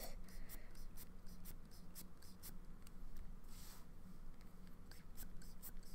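Metal pen nib scratching across paper in many short strokes while ink is being swatched, with one longer stroke about halfway through.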